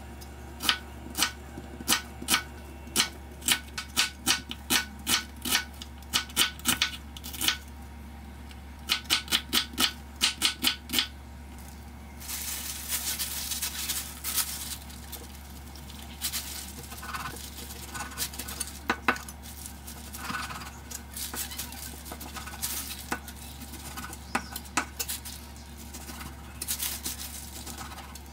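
Kitchen knife slicing an onion on a wooden cutting board: sharp, regular chops about two a second, then a quicker run of chops. From about twelve seconds in, softer, irregular rustling and knife cuts as thinly sliced pork belly is handled with a plastic-gloved hand and cut on a plastic board.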